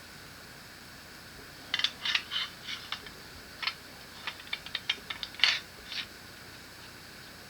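Small metal parts of a Kimel AP9 pistol clicking and clinking against each other as the gun is reassembled. A cluster of light clicks of uneven spacing starts about two seconds in and stops about six seconds in, the loudest one near the end.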